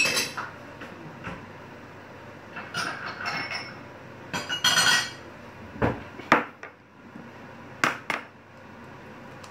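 Kitchen clatter on a countertop: dishes and a small bowl knocking and clinking, with a sharp knock at the start and scattered knocks and clinks throughout.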